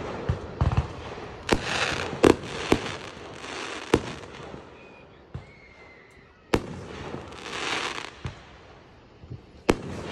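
Aerial fireworks going off: sharp bangs of shells bursting, three in quick succession around two seconds in and single ones later. Several bangs are followed by a long crackling hiss from the burning stars.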